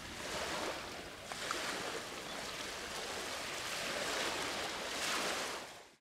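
Sea waves washing, a noisy wash that swells a few times and fades out near the end.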